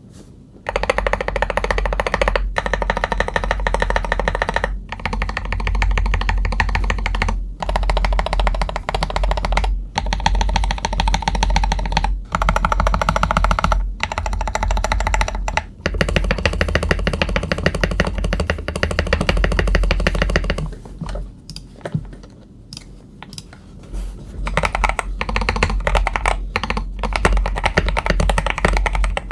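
Music with a steady beat for about the first twenty seconds, over or alongside mechanical keyboard typing. After a brief lull, clear separate keystrokes on a Tester68 keyboard with Akko CS Jelly Black linear switches clack on their own.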